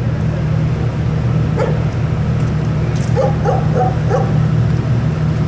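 A dog yapping in a quick series of four or five short, high yips about three seconds in, over a steady low hum.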